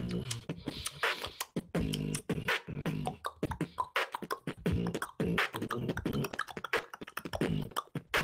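Solo beatboxing transmitted over a voice-chat connection: a fast run of mouth clicks and snare-like hits over hummed low bass notes.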